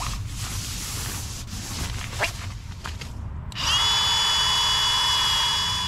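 Rustling of the sleeping pad being handled, then about three and a half seconds in a small battery-powered electric air pump switches on and runs with a steady high whine, inflating an air sleeping pad.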